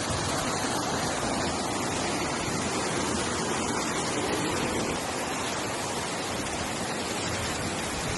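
Steady rush of fast-flowing floodwater, an even wash of noise across all pitches.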